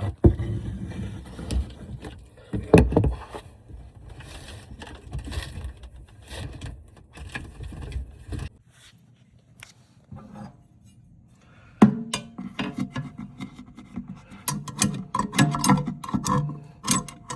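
Irregular knocks, scrapes and rubbing from parts and tools being handled, as a garbage disposal is worked on under a kitchen sink. There is a lull of a few seconds in the middle, then denser clattering.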